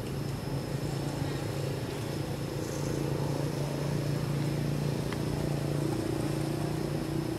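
Steady low hum of an engine running, with a faint high-pitched whine over it.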